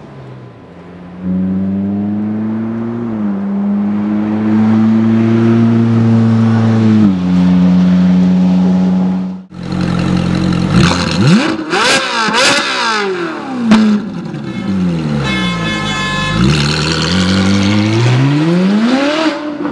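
Ferrari 458 Speciale's 4.5-litre V8 accelerating hard, its pitch climbing steadily, with a gear change near seven seconds in. After a sudden break, it downshifts with quick rev blips and sharp cracks, the pitch falling, then rising again as it pulls away.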